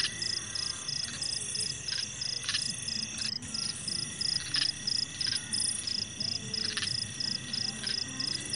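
A cricket chirping steadily at night: one high-pitched chirp repeated evenly, about three times a second.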